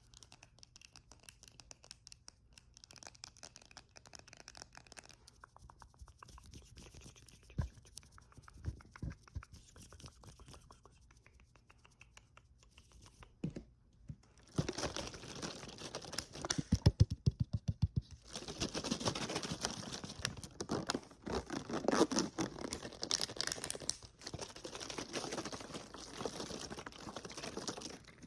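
Fast, light tapping and clicking for about fourteen seconds, then louder, rapid scratching and rubbing.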